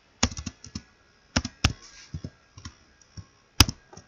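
Computer keyboard typing: irregular keystrokes in short clusters, with one sharper stroke near the end.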